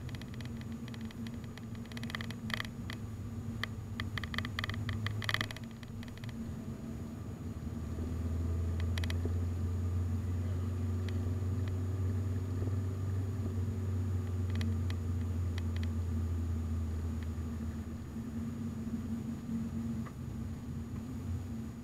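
Car driving, heard from inside the cabin: a steady low drone of engine and road noise that grows louder from about eight seconds in. A run of light rattles and clicks comes in the first five seconds, with a few more near the middle, over a faint steady high whine.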